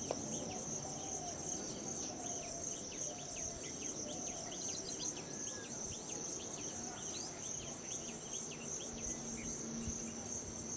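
Insects trilling in a steady, high, rapidly pulsing chorus, with many short falling chirps mixed in over a low background hum.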